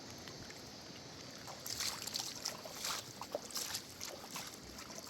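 Water splashing and lapping around a small boat, with a few short splashes from about two seconds in.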